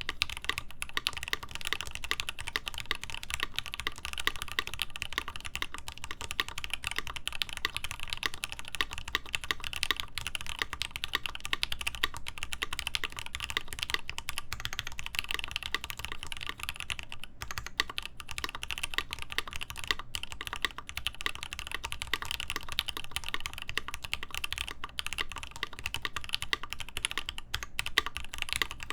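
Continuous fast typing on a mechanical keyboard with lubed Gateron Ink linear switches in a polycarbonate plate with internal dampener, giving a dense run of keystroke clicks with a couple of brief pauses.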